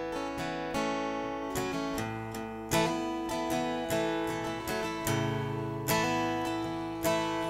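Acoustic guitar playing the instrumental intro of a country song, with strummed chords that ring on between strokes.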